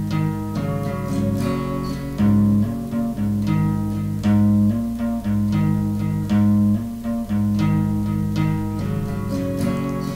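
Acoustic guitar playing an instrumental passage between sung verses: a steady run of plucked notes over a rhythmic pattern of low bass notes.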